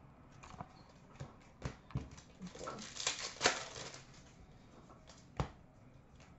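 Trading cards being handled and set down: a run of soft, irregular clicks and taps, with sharper taps about three and a half and five and a half seconds in.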